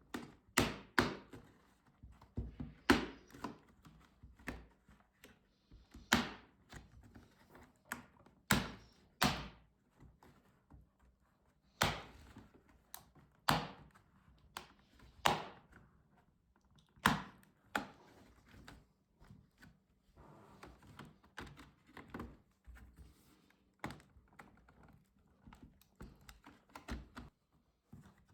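Sharp plastic clicks and knocks at irregular intervals, some in quick pairs, from an HP Pavilion 17-f laptop being taken apart by hand. The loudest come in the first part, with softer tapping later on.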